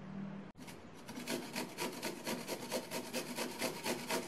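Peeled white radish (mooli) grated on the fine holes of a stainless-steel box grater: a rhythmic rasping of quick, even strokes that starts about a second in.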